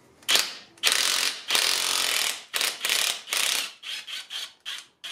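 Ratchet wrench clicking in a series of short bursts, each about a second or less, as the cam-drive sprocket bolts on a Harley-Davidson Milwaukee-Eight engine are loosened.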